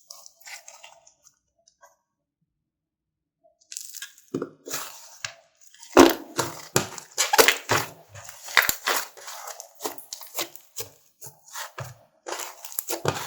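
Foam-ball slime mixed with clay being pressed and stretched by hand. After a few nearly quiet seconds, a fast, irregular run of sticky pops and crackles starts about four seconds in. The foam balls are unbaked, so the pops are soft rather than crunchy.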